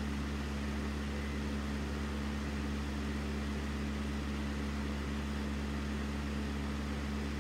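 Steady low hum with a faint even hiss: room background noise, with nothing else happening.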